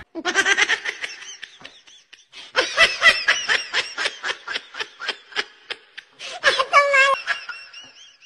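A person laughing in quick short bursts, about four a second, with a longer, higher-pitched laugh about seven seconds in.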